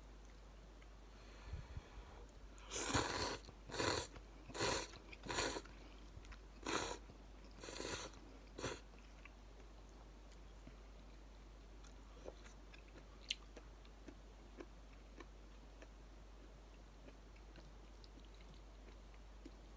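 A person slurping instant ramen noodles: about seven short, loud slurps between about three and nine seconds in, then a few faint clicks.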